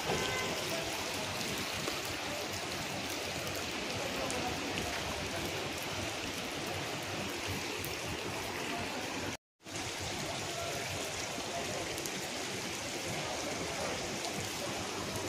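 Steady rush of rainwater and runoff, with no single event standing out; the sound cuts out for a split second about nine and a half seconds in.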